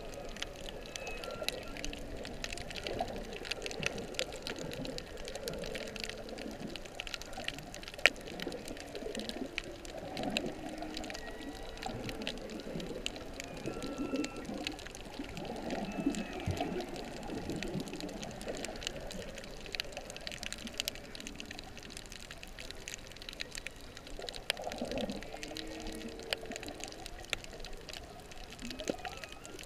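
Humpback whale song heard underwater: a run of low moans, groans and short upward and downward glides, with a few brief higher whistled notes, over a steady crackle of fine clicks. One sharp click stands out about eight seconds in.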